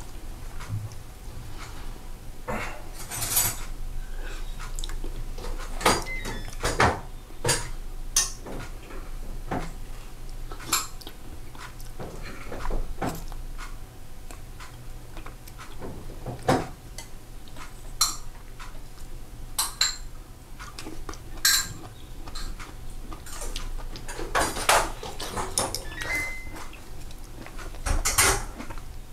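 Spoons and chopsticks clinking and tapping against bowls and plates while eating, in irregular sharp clinks every second or two, some with a brief ringing.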